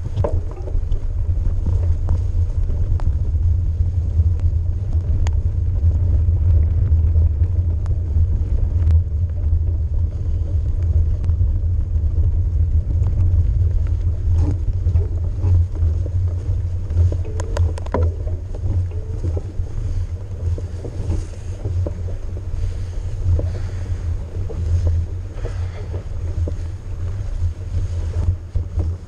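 Mountain bike riding a snow-dusted dirt trail, heard through an action camera: a steady low rumble of wind buffeting the microphone and tyres rolling, with scattered clicks and knocks from the bike going over bumps.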